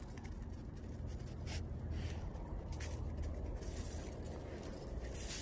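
Faint crunching and scraping of frost crystals: a few soft crunches over a steady low rumble.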